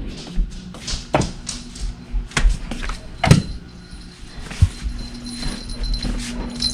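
Dog playing with a cat toy, dragging and tossing it on the floor: irregular knocks and scrapes, several a second.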